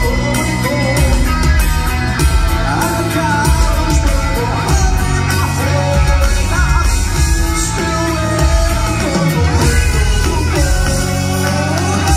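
Live rock band playing loudly: a male lead singer sings over electric guitars, bass and drums, heard from the audience in a club.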